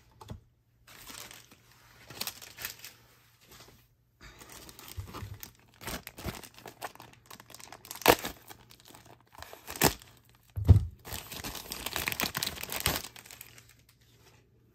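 Clear plastic bag crinkling and rustling as it is pulled open by hand to free a trading-card booster pack, with a few sharp snaps and a tearing sound in the middle.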